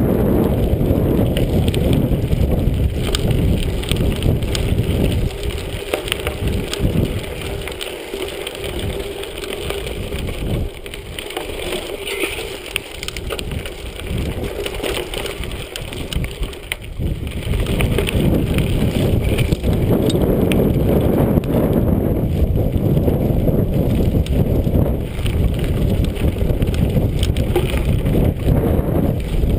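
Wind buffeting the microphone while a mountain bike rides over dirt singletrack, with tyres crunching and the bike's parts rattling. The wind noise eases for a stretch in the middle, where the clicks and rattles of the bike come through, then rises again.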